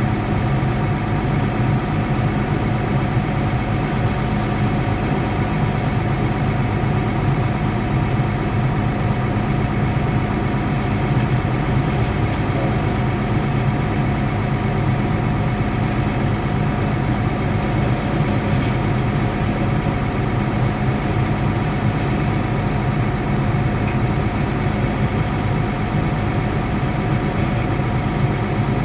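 Caterpillar D6 dozer's diesel engine idling steadily, heard from inside its cab as a constant low drone.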